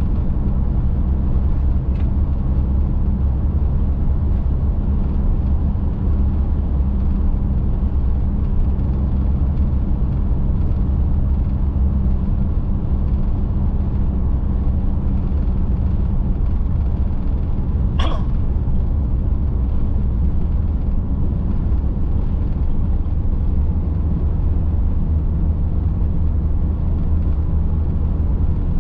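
Steady low drone of a motorhome's engine and tyres at highway speed, heard from inside the cab. One brief click comes about two-thirds of the way through.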